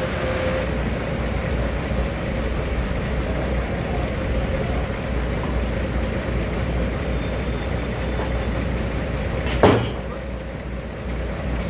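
Sawmill machinery running steadily with a low hum, and one sharp knock about ten seconds in.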